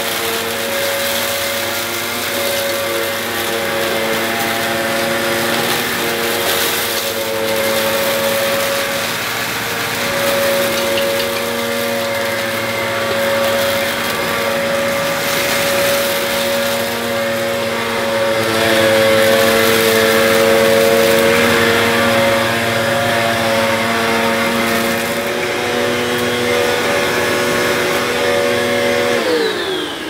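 Hoover Purepower bagged upright vacuum cleaner running on a tiled hard floor: a steady motor whine, with the brush roll scratching and scraping on the tiles and grit rattling up the nozzle. Near the end the motor is switched off and its whine falls away as it winds down.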